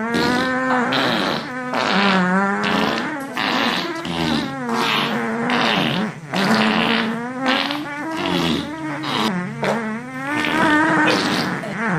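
Fart sound effects: long farts with a wobbling pitch, one after another with only short breaks between them.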